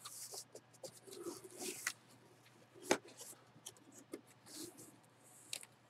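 Hands handling a cardboard box as its lid is opened: faint rubbing, scraping and rustling with scattered small clicks, and one sharp tap about three seconds in.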